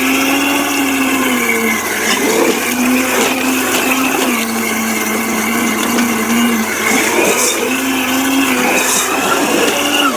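Oreck upright vacuum cleaner's motor running at speed, a loud whine over airflow hiss. Its pitch sags and recovers every second or two as the load changes.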